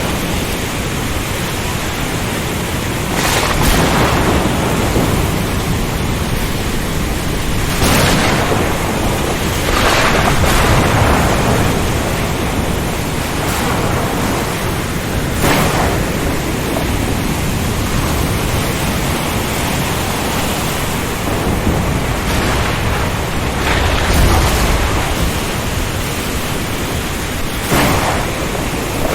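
Storm ambience: a steady rush of heavy rain and strong wind, with about six sudden cracks or rumbles of thunder spread through it.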